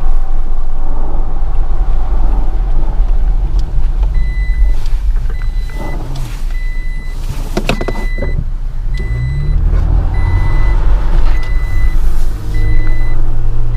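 Vehicle engine running with a steady low rumble, its pitch rising about nine seconds in as it revs. From about four seconds in, a high electronic warning chime beeps on and off, and there are a few sharp knocks in the middle.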